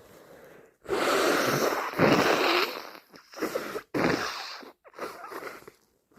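A person with a cold blowing their nose hard, congested: one long blow of about two seconds starting about a second in, then three shorter blows.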